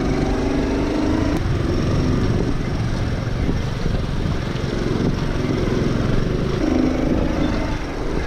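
Honda Trail 110's small air-cooled single-cylinder engine running while the bike is ridden, with wind rushing over the microphone. The engine pitch climbs briefly near the start and again near the end.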